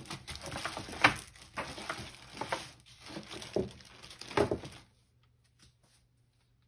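Someone rummaging by hand: rustling of packaging and objects with about five sharp knocks and clacks, which stops about five seconds in.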